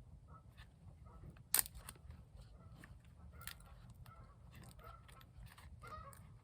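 Distant flock of Canada geese honking, many short calls overlapping again and again. One sharp snap about one and a half seconds in.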